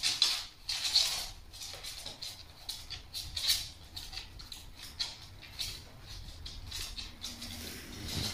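Claws of two Shiba Inus clicking and scrabbling on a hardwood floor as they scuffle, in irregular quick runs of light clicks.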